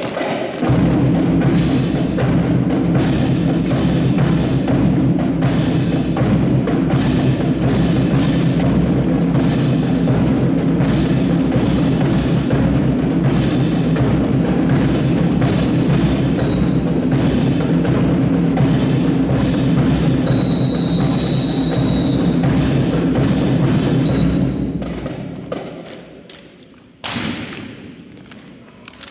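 Music with heavy percussion and many sharp knocks over it; it fades out a few seconds before the end, followed by one sharp knock.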